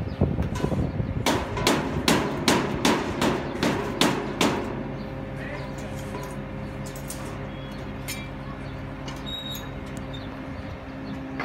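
A hammer struck about ten times in a steady rhythm, a little over two blows a second, then stopping. A steady mechanical hum runs underneath.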